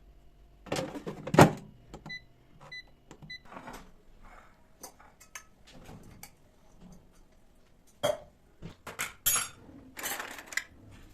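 Dishes and utensils clattering and being set down in a kitchen, in irregular knocks and clinks, the loudest just after a second in and again near the end. About two seconds in, a kitchen appliance gives three short electronic beeps.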